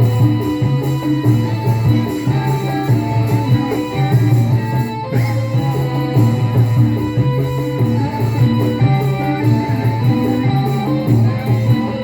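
Band music, mostly instrumental, with a pulsing bass line and melodic lead notes over it.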